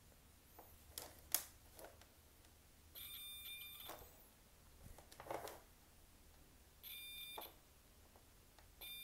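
Digital multimeter's continuity buzzer beeping as its probes touch the ends of an RCA cable's red signal wire, each beep meaning the wire conducts through. There is one steady high beep about three seconds in that lasts about a second, a shorter one near seven seconds and another at the very end. Before the first beep come a few sharp clicks from the probes and wire being handled, the loudest about a second and a half in.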